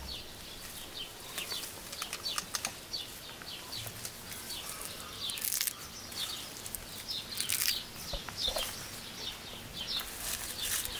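Small birds chirping on and off, over rustling and crumbling of soil and plant roots as carrots are pulled from the ground by hand, with a couple of louder rustles past the middle.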